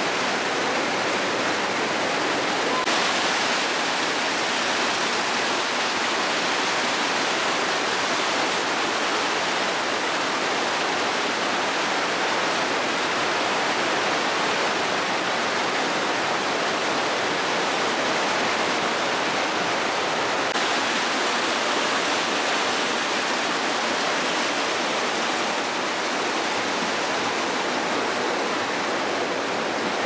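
Steady rushing of a mountain stream tumbling over rocks and small cascades in a narrow limestone canyon.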